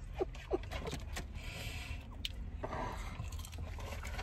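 Soft eating sounds: chewing and the rustle and scrape of paper food packaging, over a steady low hum, with a few small clicks.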